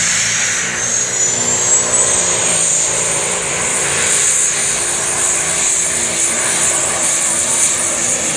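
Peterbilt pulling semi's diesel engine at full throttle dragging a weight sled, running loud and steady. A high whine climbs over the first couple of seconds and then holds.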